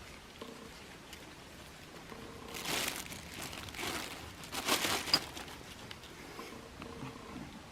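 Two short bouts of crinkling and rustling, about three and five seconds in, the second ending with a sharp click.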